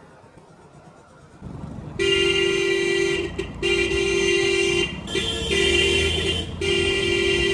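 Loud aftermarket horn on a modified Hero Splendor motorcycle sounding in several long blasts with short breaks, starting about two seconds in over a low rumble.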